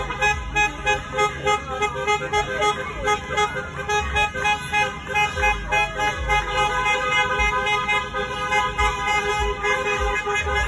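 Several car horns honking at once in a continuous, pulsing chorus, about three beats a second, with voices calling out over them.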